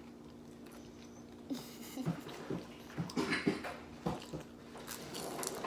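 Close-up eating sounds: chewing and crunching of fried fish tacos in crisp taco shells, with irregular crackly bites and mouth smacks starting about a second and a half in, over a faint steady hum.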